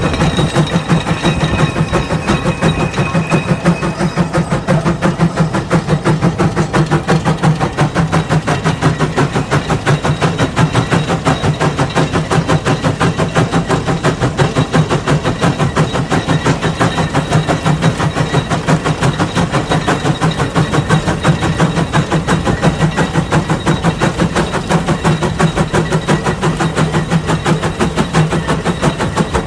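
Case 150 steam traction engine chuffing steadily under heavy load as it pulls a 36-bottom plow: a fast, even train of exhaust beats that holds pace throughout.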